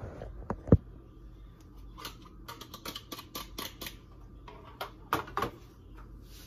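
A sharp knock less than a second in, then quick runs of light clicks as a utensil beats an egg in a plastic cup, knocking against its sides.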